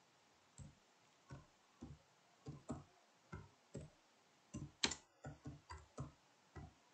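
Faint keystrokes on a computer keyboard: separate clicks at an uneven pace, coming faster in the second half, with one sharper click about five seconds in.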